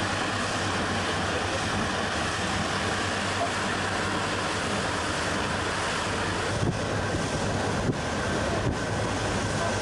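Steady rush of wind over the microphone and water along the hull of a moving tour boat, with the boat's engine humming low underneath.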